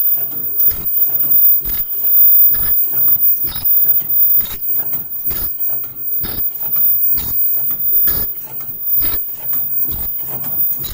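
Automatic KF94 face mask production line running: a steady rhythm of mechanical clacks and clicks from its stations, with a stronger knock just under once a second, over a low machine hum.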